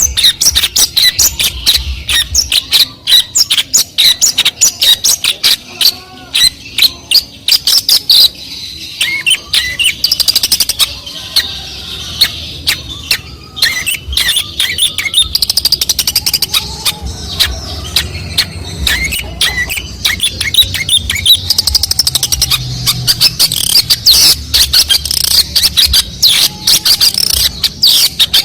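Long-tailed shrike singing in full voice: a fast, dense stream of sharp chips and chattering notes, its song stuffed with mimicked calls of other birds such as fighting sparrows, canary and lovebird.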